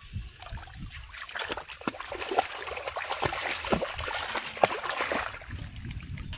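Water splashing and dripping as a large fish is pulled out of shallow water by hand and carried dripping. A run of sharp wet slaps and drips builds about a second in, is loudest in the middle, and eases off near the end.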